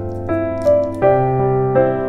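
Background piano music: a light melody, with a new note struck about every half second over held chords.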